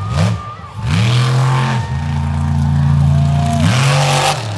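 Toxic monster truck's engine revving hard: a quick rev at the start, then it revs up about a second in and holds high for a couple of seconds before dropping back near the end.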